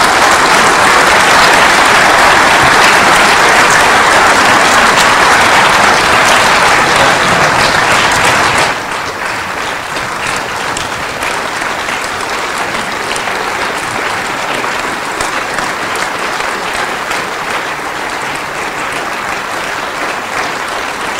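Large audience applauding a speaker at the end of a talk. The clapping is loud at first, then about nine seconds in it drops suddenly to a softer level and keeps going.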